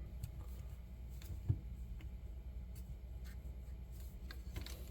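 Faint scattered clicks and one short knock about a second and a half in, from small metal hardware being handled and fitted, over a steady low hum.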